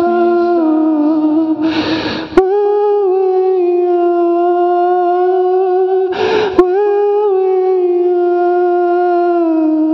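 Ambient music: a held droning tone with overtones, slowly shifting in pitch. Twice, about four seconds apart, a swelling rush of noise cuts in and ends with a sharp click.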